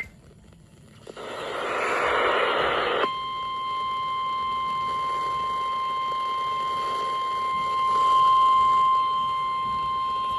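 A burst of harsh, static-like noise lasting about two seconds, then a single steady alert tone near 1 kHz that starts suddenly about three seconds in and holds. This is the Emergency Alert System attention signal on FM radio, announcing a severe thunderstorm warning.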